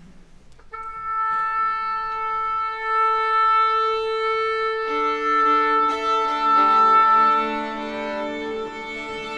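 An oboe sounds a long, steady tuning A, and about five seconds in the orchestra's strings join, each player tuning open strings against it in sustained overlapping notes.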